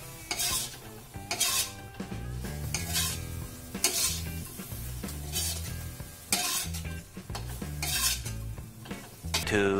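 A metal spatula scraping and tossing tempe, chilli and basil in a wok, with the food sizzling as it stir-fries. The scrapes come about once a second.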